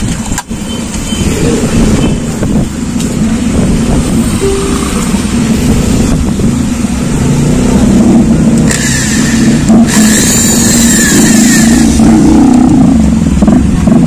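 Electric hand drill boring a small hole into a wooden grip. The high cutting and whining noise is loudest for about three seconds starting a little past the middle, over a steady low rumble.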